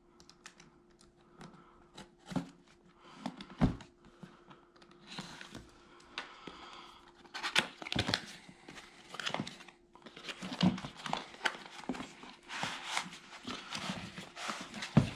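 Cardboard box and its packaging being opened by hand: irregular rustling, crinkling and tearing, with scattered sharp knocks, over a faint steady hum.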